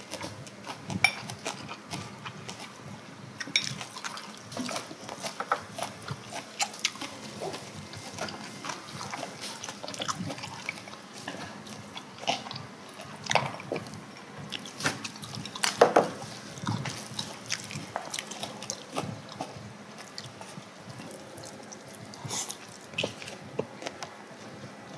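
Beer poured from a glass bottle into a glass, then scattered clicks of chopsticks and tableware, with chewing and slurping of noodles at a meal.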